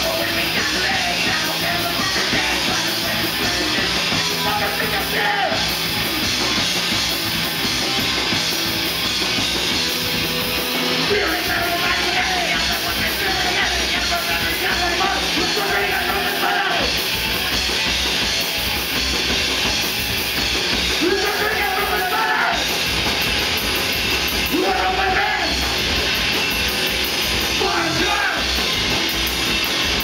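Loud, dense rock music with drums and yelled singing.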